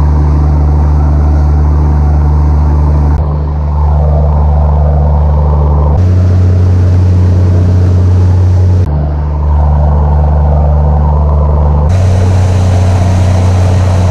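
Motor boat under way: the engine runs at cruising speed as a steady low drone, with the rush of the wake and wind over it. The drone's pitch and level shift abruptly every three seconds or so.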